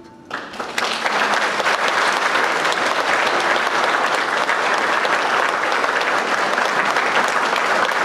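Audience applause, breaking out within the first second and continuing steadily.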